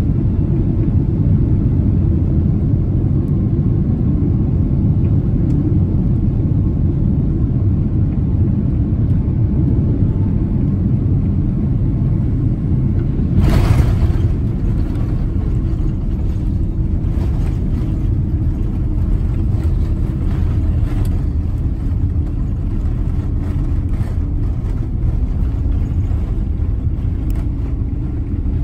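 Boeing 767-300ER cabin noise on landing: a steady low rumble on short final, a sharp thud about halfway through as the wheels touch down, then the rumble of the rollout with many short knocks and rattles as the airliner runs along the runway with its spoilers up.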